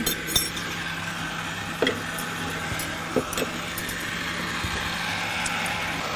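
Electric countertop blender running steadily, blending a jug of beetroot juice.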